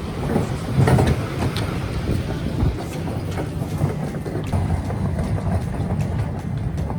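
A rented van on the move: steady road and engine noise with rattles and knocks.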